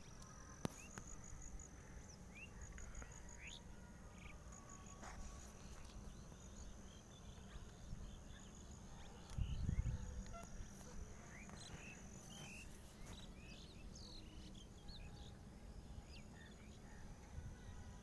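Many small birds chirping, short high calls scattered throughout and busiest in the second half, over a steady high-pitched trill. A brief low rumble about halfway through as the phone is moved.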